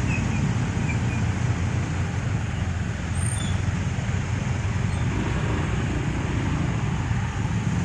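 Road-vehicle engines running in slow traffic through a flooded street: a steady, loud low rumble with a hiss above it.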